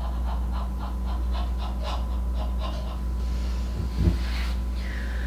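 A woman panting in quick, short breaths, about four to five a second, then easing off. A soft thump about four seconds in.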